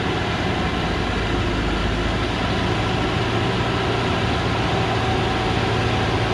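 Diesel engine of a truck heavily loaded with acacia logs, running steadily under load as it climbs a dirt hill road, a low, even hum without revving up or down.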